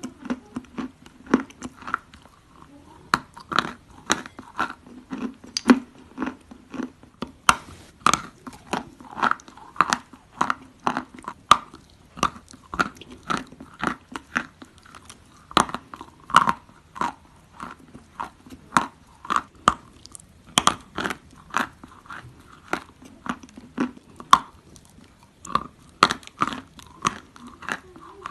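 Sticks of chalk being bitten and chewed close up: a steady, irregular run of dry, sharp crunches and snaps, a few each second.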